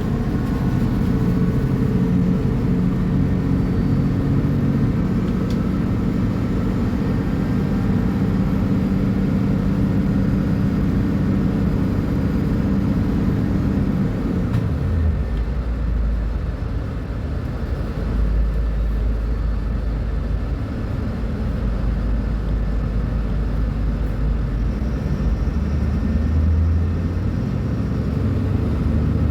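Mercedes-Benz O500U city bus diesel engine running under load with a steady low note. About halfway through the note drops away as the revs fall to a lower rumble, and it rises again briefly near the end.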